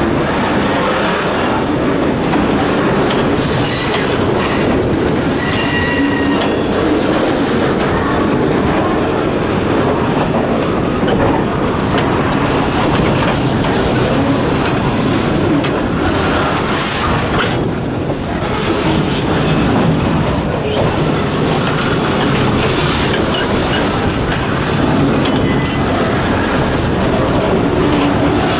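Freight train boxcars rolling past at close range: the steady noise of steel wheels running on the rails, with a brief high squeal about six seconds in.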